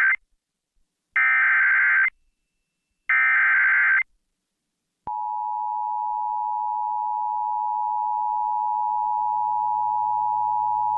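Emergency Alert System activation on a radio broadcast: the shrill digital data bursts of the SAME header, three in all and the first ending just after the start, then a second's pause and, about five seconds in, the steady two-tone EAS attention signal. It marks the start of a National Weather Service severe thunderstorm warning.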